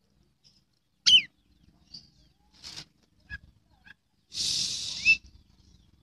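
Oriental magpie-robin singing: a loud sharp whistle falling in pitch about a second in, a few short scattered notes, then a longer harsh note near the end that closes on a short falling whistle.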